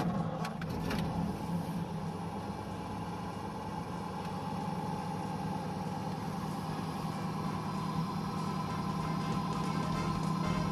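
A 1937 Ford Model 78's flathead V8 running steadily, heard from inside the cabin as a low drone that grows slightly louder toward the end.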